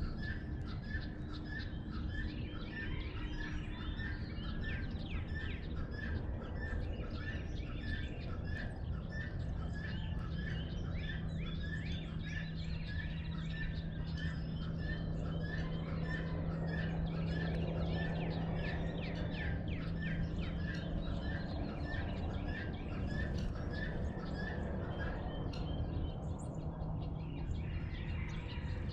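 Birds calling at sunrise: a quick, even run of repeated chirps, about two a second, over many short downward-slurred calls from other birds, with the chirping stopping near the end. A low steady hum sits underneath through the middle.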